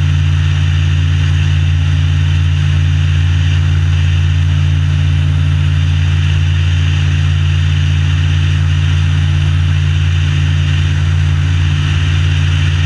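Rotax 912ULS four-stroke flat-four engine of a Tanarg trike ultralight running steadily at constant power, driving its three-bladed propeller: a loud, even low drone with a hiss over it and no change in pitch.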